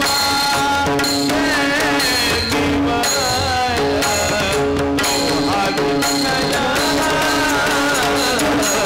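Marathi Warkari devotional bhajan: a man singing an ornamented, wavering melody over harmonium, with steady drum beats.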